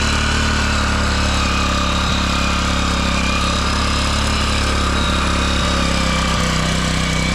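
Small petrol engine running steadily at an even speed, with no change in pitch or level.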